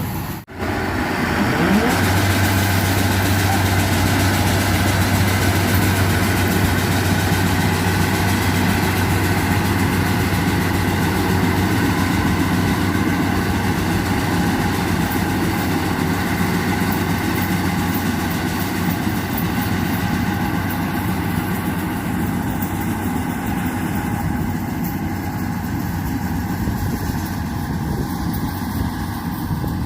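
Yanmar AW82V combine harvester's diesel engine running steadily, with a constant low hum. There is a brief dropout just after the start, and the sound turns a little duller in the last third.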